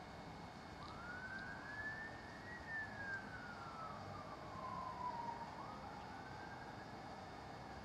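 A siren wailing, one slow rise and fall and then a second rise that is falling again near the end, over a steady background hiss.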